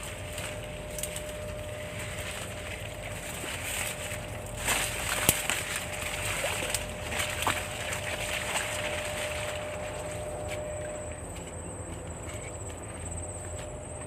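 Leaves, stems and dry grass rustling and brushing as someone pushes on foot through dense undergrowth, with one sharp snap about five seconds in, the loudest moment. A thin steady high tone sets in near the end.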